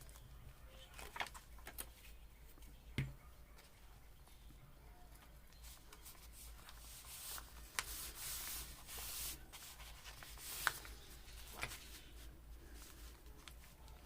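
Faint rubbing and rustling of paper being pressed and smoothed down by hand, with scattered light ticks and taps.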